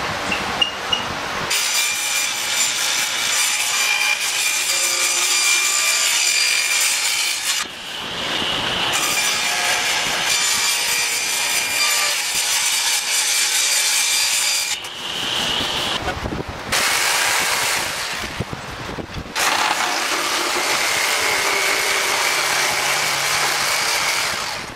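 Corded handheld power saw cutting through a wooden cabinet door frame, a rasping cut with a steady high whine, in four long runs with brief stops between them.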